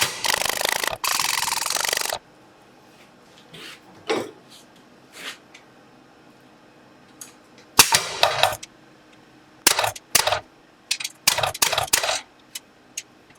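Power hammer beating hot steel in a rapid run of blows that stops abruptly about two seconds in, while the stock is drawn down. After a quiet stretch come short bursts of hammer blows and separate sharp metallic knocks and clinks.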